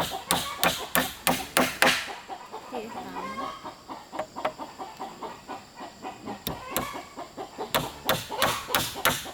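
Chickens clucking, with rapid sharp strikes on something hard, about three or four a second, during the first two seconds and again near the end.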